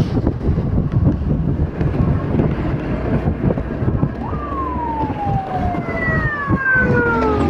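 Motorcycle riding along a road: steady wind buffeting and engine rumble. In the second half, high whines glide steadily down in pitch.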